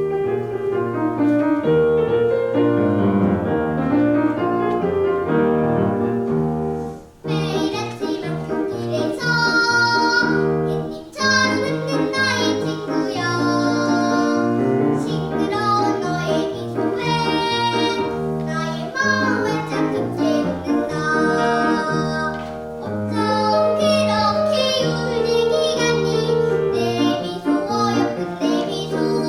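A young girl singing a Korean children's song (dongyo) with instrumental accompaniment. The accompaniment starts abruptly, and the singing comes in about seven seconds later.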